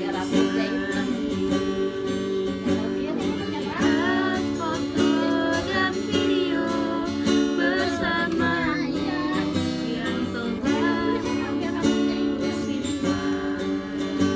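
A voice singing over a strummed acoustic guitar, the singing clearest in the middle.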